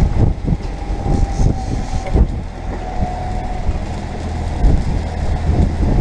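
Fishing boat's motor running under way, with gusty wind buffeting the microphone in irregular low thumps.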